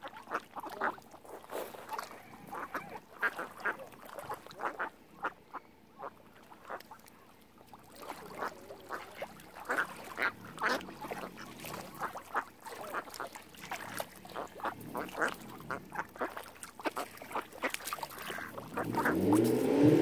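Ducks quacking, many short calls following one another irregularly. Near the end, a louder low droning sound with a sliding pitch comes in.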